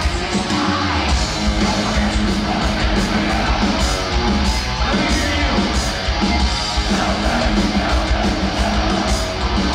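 Heavy metal band playing live, loud and dense: a singer's vocals over distorted electric guitars, bass and drums, heard from within the audience.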